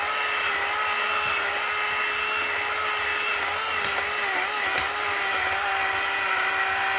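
Chainsaw running at steady high speed while cutting wood, its pitch dipping slightly in the middle as the chain bites.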